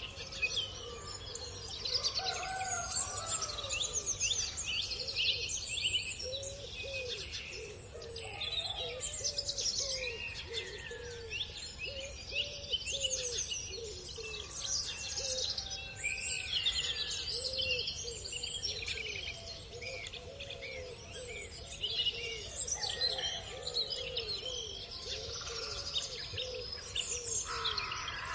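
Morning birdsong at a farm: many small birds chirping and trilling at once, with a lower call repeated steadily, about twice a second, through most of it.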